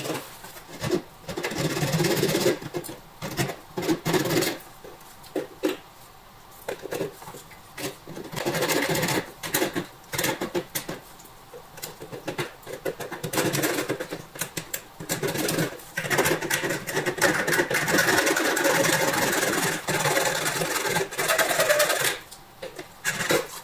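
Small hacksaw cutting a small metal part clamped in a vise: back-and-forth sawing strokes in short spurts with pauses, then a longer unbroken run in the second half.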